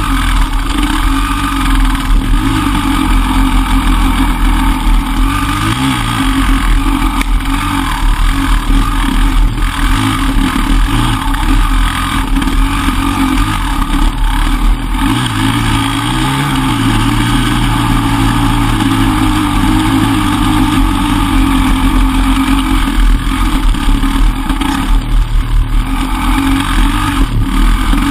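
Enduro motorcycle engine running while riding a woodland trail, the throttle opening and closing so the pitch rises and falls.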